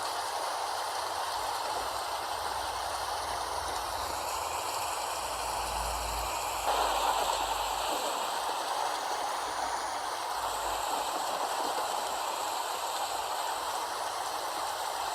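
Steady rain falling, an even continuous patter with a slight swell about halfway through.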